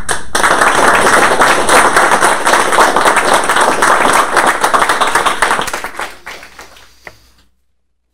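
Audience applauding: many hands clapping loudly for about five seconds, then dying away with a few last scattered claps.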